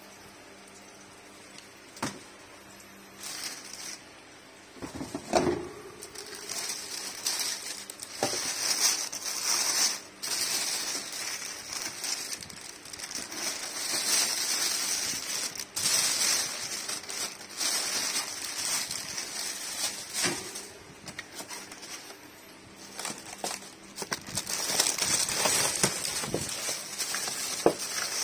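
Clear plastic wrapping crinkling and rustling in irregular bursts as it is handled and pulled off packed fan parts, with scattered light knocks; quieter for a few seconds about three-quarters of the way through.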